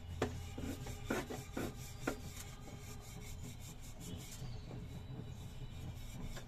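Grooved wooden rolling pin rolling out a momo wrapper on a plastic cutting board: a rhythmic rubbing rasp, with about five light knocks in the first two seconds.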